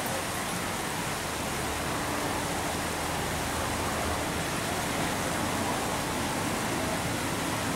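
Shallow river water rushing over rocks in a rocky riffle: a steady, even rush.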